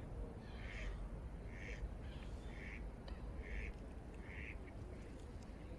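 An animal calling in a series of short calls, about six of them at a little under one a second, over a low steady rumble.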